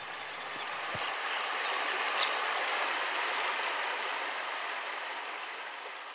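River water flowing, a steady rushing noise that swells in over the first couple of seconds and fades toward the end.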